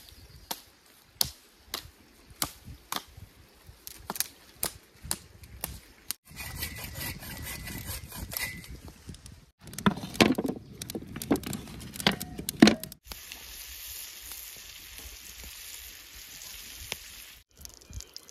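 Dry wood snapping and crackling in sharp clicks, a few a second; later a few knocks as bacon goes onto a flat griddle over the campfire, then a steady sizzle of food frying on the griddle for about four seconds near the end.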